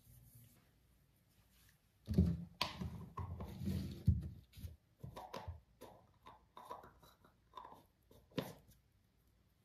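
Small plastic cosmetic cream jar being handled on a dressing table: an irregular run of knocks, clicks and rustles as it is picked up, opened and set down. It starts about two seconds in, with the loudest knocks early on, and thins out near the end.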